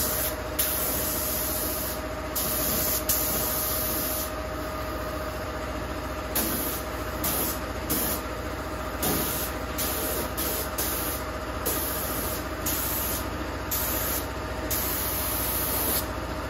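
Air spray gun hissing on and off in short bursts, roughly once a second, over the steady hum of a running air compressor, applying primer to a car door.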